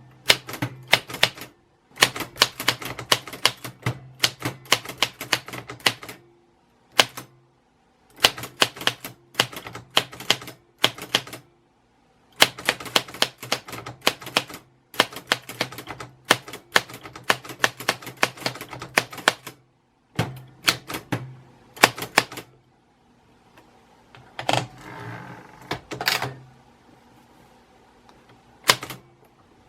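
Typewriter keys striking in quick runs of sharp clacks, broken by short pauses. Past the middle the typing stops for a few seconds, and a longer scraping sound comes in before the clacking resumes.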